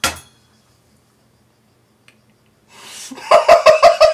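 A woman laughing helplessly: a snorting breath at the start, a couple of seconds of silent laughter, then a gasp in and loud, rhythmic "ha-ha-ha" laughter from about three seconds in, some six pulses a second.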